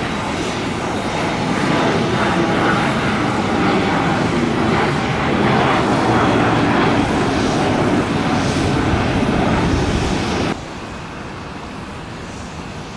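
Twin-turbofan business jet at takeoff power just after liftoff, its jet noise swelling over the first couple of seconds and then holding loud and steady as it climbs out. About ten seconds in the sound cuts off abruptly, leaving a much quieter steady background noise.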